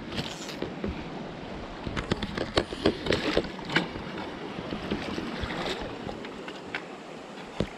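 Irregular splashes and knocks over a steady rush of moving water, with wind on the microphone.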